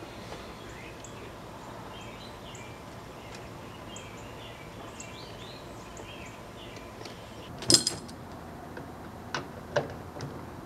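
Small birds chirping over a steady background noise; about three-quarters of the way in, one loud clunk from the metal-cased microwave oven being handled, followed by a few lighter knocks.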